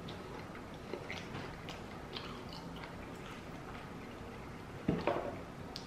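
A man chewing a crispy fried vegetable egg roll with his mouth closed: soft crunches and small mouth clicks, with one short, louder sound about five seconds in.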